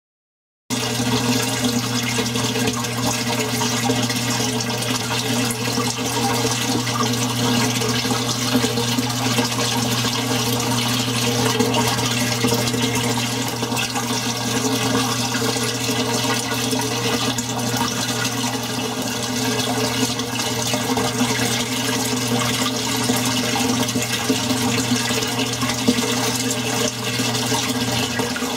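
Aquarium filter and pump running: a steady rush of moving water with a constant low electric hum, starting just under a second in.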